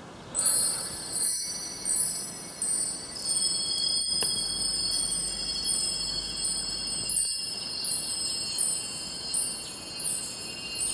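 High ringing chime tones, struck at irregular moments and overlapping one another, starting about half a second in.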